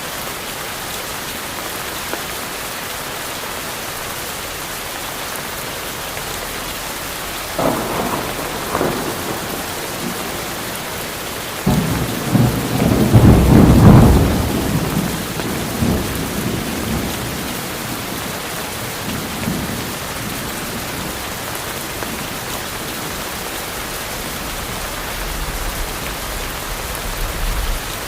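Steady rain in a tropical forest, with thunder. A short clap of thunder comes about a quarter of the way in, then a longer, louder roll near the middle that rumbles on and fades over several seconds.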